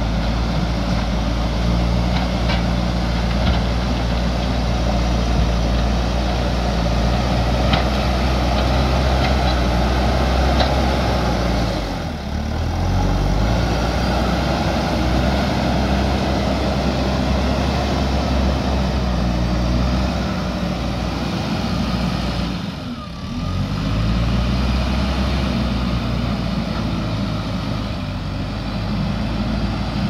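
JCB 3DX backhoe loader's four-cylinder diesel engine running under load while the front bucket pushes and carries soil. The engine note drops away briefly twice, about a third of the way in and again about three quarters through, then picks back up.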